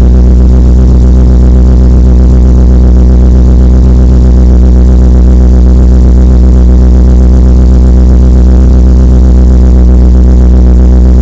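BMW E34 540i's M60 4.0-litre V8 running at a steady idle, a low even hum with regular firing pulses.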